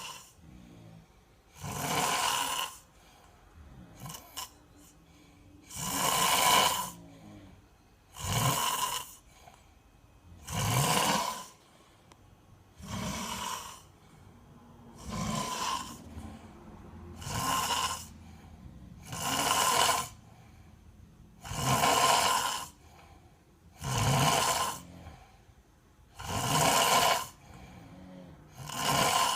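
A child snoring loudly, one snore about a second long roughly every two seconds in an even rhythm, with quieter breathing between the snores.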